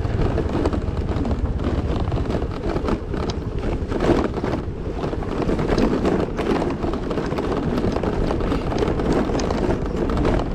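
Motor scooter riding down a rough, unpaved downhill track: a steady low rumble with wind buffeting the microphone, broken by scattered knocks and rattles as it goes over bumps.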